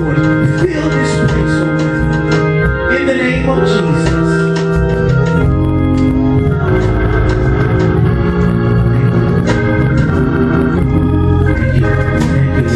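Organ played on an electronic keyboard, holding sustained chords that shift every second or two, with short sharp hits over it.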